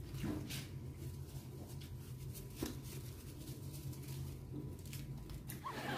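A paper takeout bag being handled: a few soft rustles and clicks, over a steady low hum. A voice begins right at the end.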